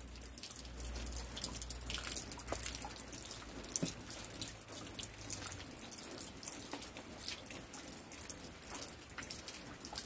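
Light winter rain: scattered drops dripping and ticking irregularly, several a second, over a faint low hum.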